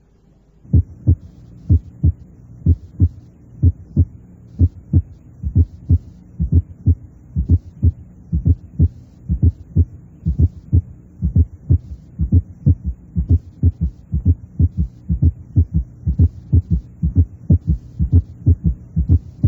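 Recorded heart sounds in a quadruple rhythm, built up step by step. First and second heart sounds come first, then an atrial (fourth) sound is added, and finally a third heart sound. With both extra sounds present at a rate too slow for them to fuse into a summation gallop, each beat has four sounds. A low steady hum runs underneath.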